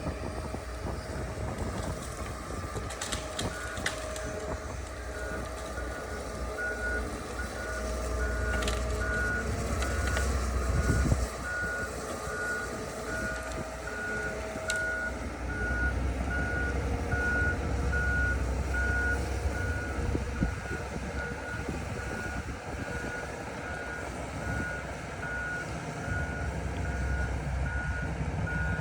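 Heavy machine engine running, with a reversing alarm beeping repeatedly about once a second. The engine swells under load twice.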